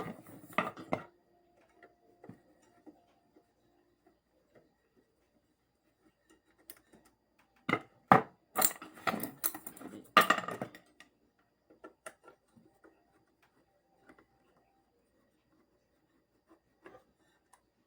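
Clicks, knocks and clatter of hard parts being handled as a ceiling fan's housing is opened up. A busy cluster of sharp clicks and rattles about eight to eleven seconds in, with scattered light taps elsewhere.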